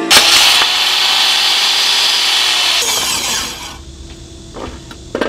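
Small table saw cutting a groove into a wooden handle block, running through the wood for about three and a half seconds before the motor winds down. A few light knocks follow near the end.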